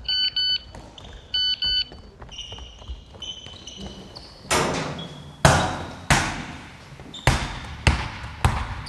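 Two quick double electronic beeps, then a few fainter beeps, followed from about halfway by six loud, sharp thumps with a ringing decay, spaced roughly half a second to a second apart.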